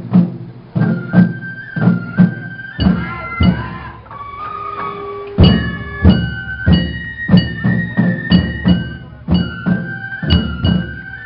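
Festival float music played on Japanese drums and a bamboo flute: a repeating drum rhythm under a stepwise flute melody of held notes. The drumming thins out for a couple of seconds about a third of the way in, then comes back with a loud stroke.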